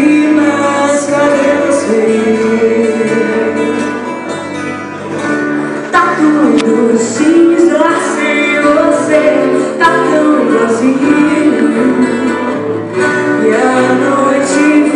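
Live acoustic band performing: several strummed acoustic guitars with a woman singing into a microphone, amplified through PA speakers. The music eases off briefly about four to five seconds in, then comes back in full.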